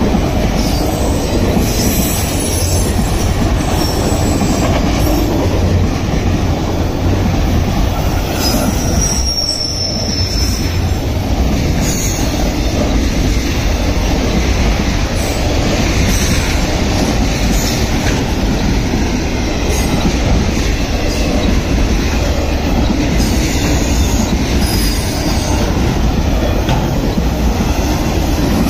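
Freight train of autorack cars passing close by: steady loud running noise of steel wheels on the rails, with brief high wheel squeals about a third of the way through and again near the end.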